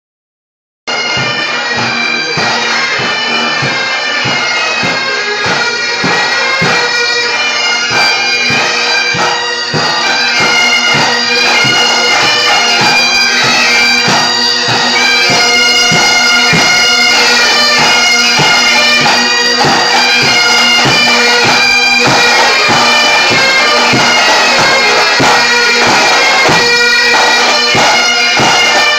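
Pipe band playing: several Highland bagpipes with their steady drones under the chanter melody, with drums beating a steady march beat. The music starts about a second in.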